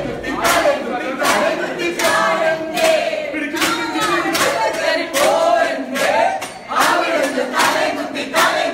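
A group of people singing together in chorus, with sharp beats keeping a steady time about twice a second.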